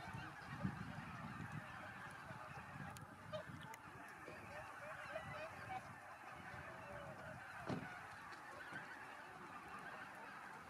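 A large flock of wild geese and swans honking, many overlapping calls merging into one continuous chorus.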